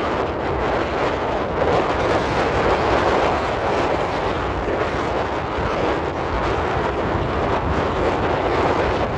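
Steady wind rush on the microphone over open water, with a low rumble underneath and no sharp shots or bangs.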